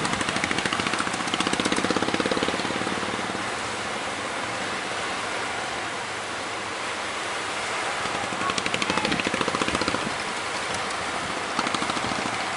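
Speedboat outboard motor running, its rapid firing pulses swelling louder twice, under a steady rush of wind on the microphone.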